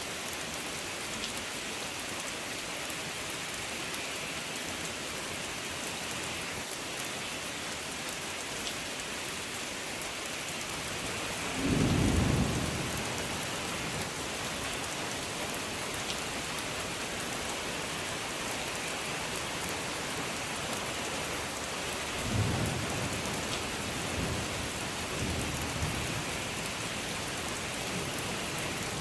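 Steady rain falling, with a loud crack of thunder about twelve seconds in and a few softer rumbles of thunder later on.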